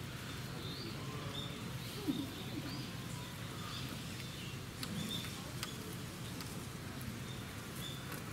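Outdoor ambience: short, faint high chirps every second or so over a steady low hum, with a few soft clicks and faint distant voices.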